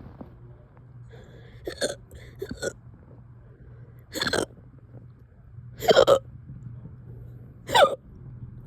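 A person hiccuping five times, a short sharp hiccup every one to two seconds, the last two the loudest. They belong to a bout of hiccups that has gone on for over two hours.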